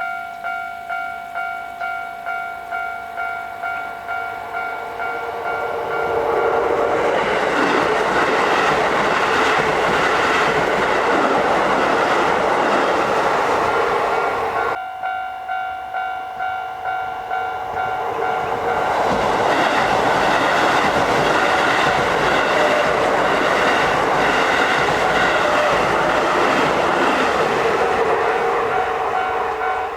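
Japanese level-crossing warning bell ringing its 'kan-kan' at about two strikes a second, then a Keisei Main Line train passing over the crossing with loud rolling rail noise. The sequence is heard twice: the bell and the train pass end abruptly about halfway through, the bell starts again, and a second train passes.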